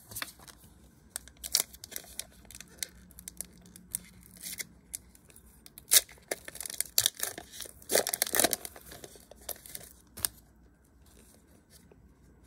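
A foil trading-card pack wrapper (2020 Upper Deck Goodwin Champions) being torn open and crinkled by hand: a series of sharp rips and crackles, the loudest about eight seconds in.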